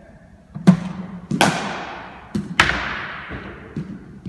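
Cricket ball practice against a BOLA bowling machine: sharp knocks of the ball being fired, landing on the hall floor and struck by the bat. There are four knocks; the two loudest each ring on with a long echo in the sports hall.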